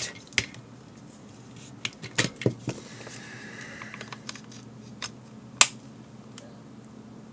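Scattered light plastic clicks and taps as a Garmin nuvi 1690 GPS unit is handled and its power cable plugged in, a few isolated sharp clicks with the loudest a little past the middle.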